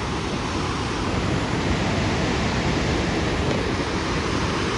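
A fast river rushing through a narrow stretch, with a steady, loud wash of churning water from its rapids.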